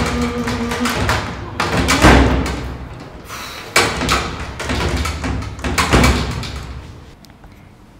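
Heavy metal lift door yanked and banged by its handle: three loud thumps about two seconds apart, each followed by a short rattle.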